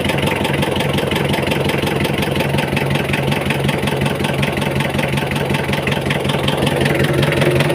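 Mitsubishi Kuda's 4D56 2.5-litre four-cylinder diesel idling steadily with its fast, even diesel clatter, running with the air conditioning switched on.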